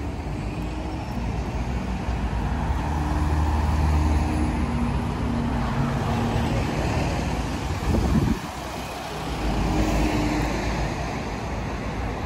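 Close-up road traffic at a kerbside: a red double-decker bus's engine running right beside the microphone, with a lorry and a black taxi driving past. The rumble swells twice, with a short loud rush just after eight seconds.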